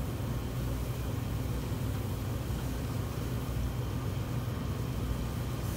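Steady low hum and hiss of commercial kitchen machinery running, with no change through the stretch.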